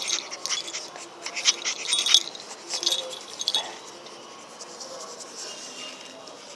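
Scratching and clicking right at the microphone as a pug puppy paws and noses at the phone. The noises come thick for the first three seconds or so, then die down.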